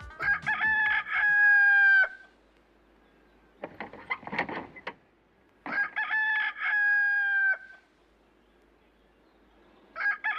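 Rooster crowing: two full crows of about two seconds each, a third beginning near the end, with a short rough burst of sound between the first two.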